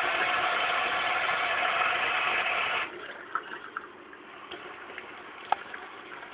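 Water running steadily from a sink tap, with a faint steady hum, stops abruptly a little under three seconds in. After that come soft drips and small clicks, with one sharp click near the end.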